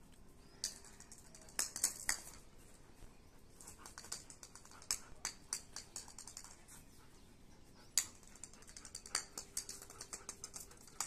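A German Shepherd's claws clicking and scraping on a concrete floor as it walks and turns, in irregular clusters of sharp taps, the loudest about eight seconds in.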